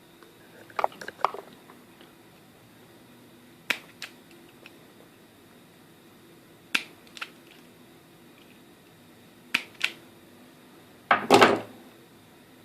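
Sharp clicks and snips of a hand tool stripping the insulation off the ends of lead wires. They come mostly in pairs every few seconds, with a longer, louder burst near the end.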